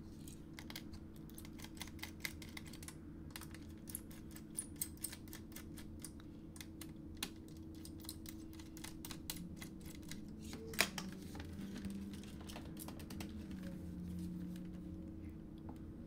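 Light, irregular clicking and ticking of a small screwdriver backing screws out of a laptop's plastic bottom panel, with one sharper click about eleven seconds in. A faint steady hum runs underneath.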